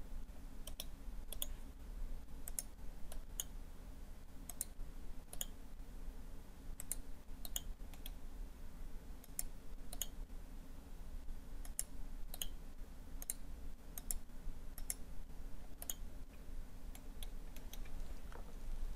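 Computer mouse buttons clicking at irregular intervals, some in quick pairs, over a faint steady low hum.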